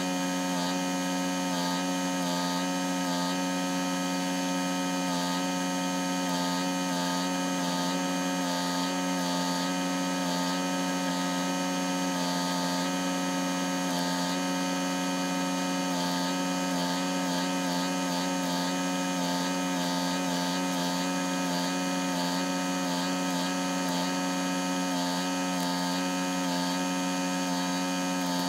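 Engine-driven welder running steadily at one speed, with the crackle of the welding arc coming and going as the truck's broken frame is welded.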